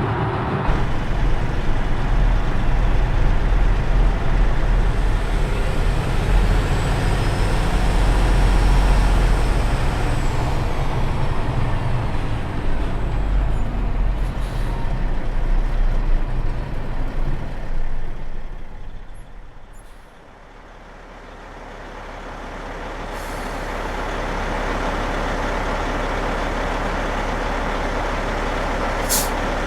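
Oshkosh 8x8 military truck's diesel engine running loud and heavy, with a high whine gliding up and down partway through. The engine fades out about two-thirds of the way in, then a second steady run of the engine swells back in, and a brief hiss comes near the end.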